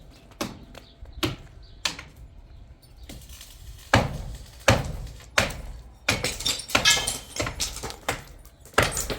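A series of irregular knocks and taps, a few single strikes about a second apart, then a denser run of clattering knocks past the middle.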